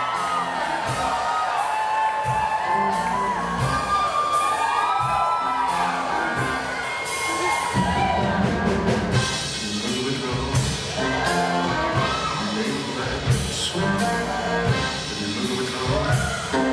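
Live rock band playing an intro vamp over a steady drum beat while the audience cheers and whoops. The full band, with bass, comes in about halfway through.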